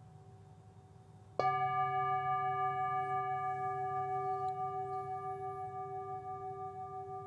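A bell struck once about a second and a half in, its clear, many-partial tone ringing on and slowly fading with an even waver.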